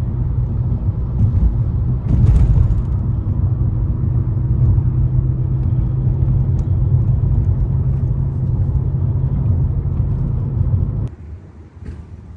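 Steady low rumble of a motor vehicle running, with a faint steady hum over it, cutting off suddenly about eleven seconds in.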